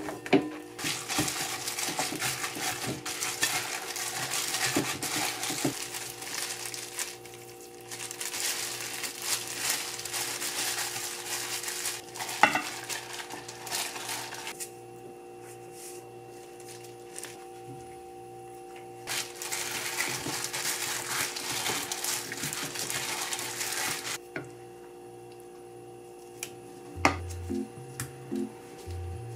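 A plastic-gloved hand squishing and kneading a ground meat and crumbled tofu mixture in a bowl, in stretches of several seconds with short pauses. Near the middle there is a sharp clink as chopped vegetables are tipped in from a glass bowl.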